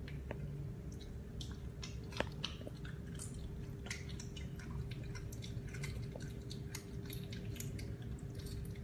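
Caracal kitten chewing and biting raw chicken: irregular wet clicks and smacks of teeth on meat, one sharper click about two seconds in, over a steady low hum.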